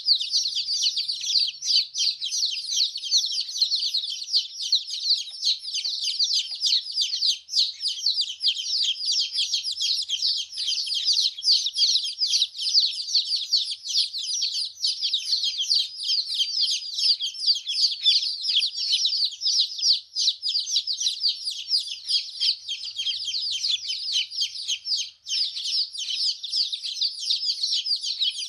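A group of baby chicks chirping continuously, many high-pitched peeps overlapping with no pause.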